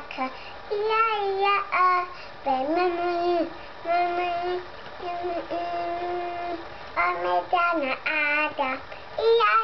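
A young boy singing a simple tune in a child's voice, with short notes at first, several long held notes in the middle, then quicker notes near the end.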